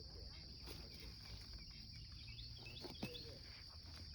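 Steady high-pitched insect drone, with a few faint chirps and one faint sharp crack about three seconds in.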